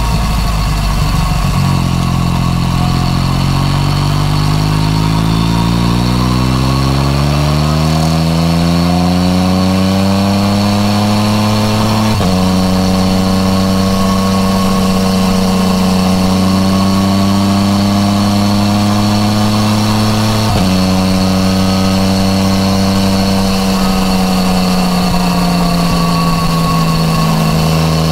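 Yamaha MT-09 Tracer's 847 cc three-cylinder engine through an Akrapovic titanium full exhaust, heard from the saddle under way. The engine note climbs steadily in pitch as the bike accelerates. It is broken twice by a short sharp cut, about twelve seconds in and again about twenty-one seconds in, each time settling a little lower: quick-shifter upshifts. Near the end the pitch eases down as the rider rolls off.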